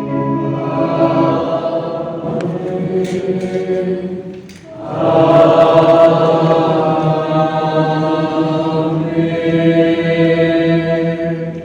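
A choir singing slow, sustained chords in two long phrases, with a short break about four and a half seconds in.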